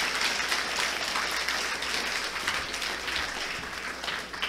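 Audience applauding, the clapping easing off near the end.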